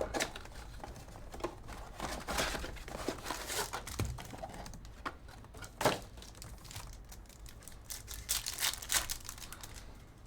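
Foil trading-card pack wrappers being torn open and crinkled by hand, an irregular run of crackles and rustles with a sharper crackle about six seconds in.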